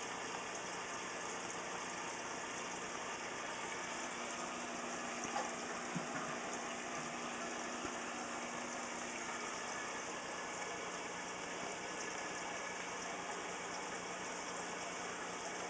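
Steady hum with a water-like hiss from a running aquarium pump, with a couple of faint knocks about five to six seconds in.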